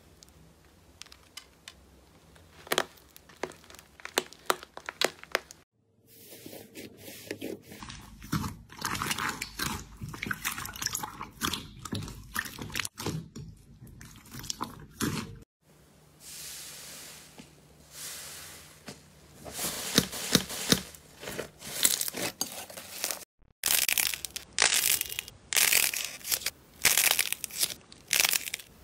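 Hands squeezing, cracking and stretching slime: runs of crisp crackles, crunches and squishy clicks. The runs come in several short clips with sudden cuts between them. The crunchiest stretch is near the end, as a slime packed with foam beads is squeezed.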